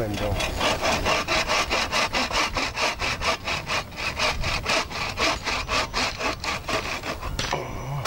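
Bow saw cutting through a wooden pole with quick, even back-and-forth strokes. The strokes stop briefly near the end.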